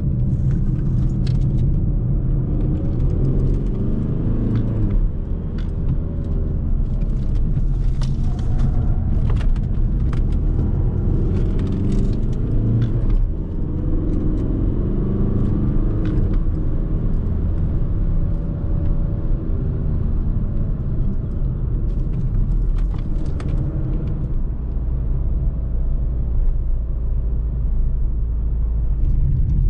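Škoda Octavia's 1.9 TDI Pumpe-Düse inline-four turbodiesel running while the car is driven, its pitch rising and falling with load and speed over a steady low drone of tyre and road noise. Two brief dips in loudness come about five and thirteen seconds in, with scattered light clicks, and the engine settles to a steady drone in the last few seconds.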